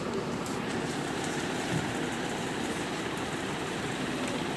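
Steady rushing room noise, even and unchanging, with a few faint light clicks.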